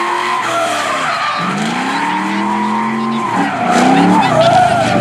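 Drift car's engine revving up and down in surges while its tyres squeal in a sustained slide; the car gets louder near the end.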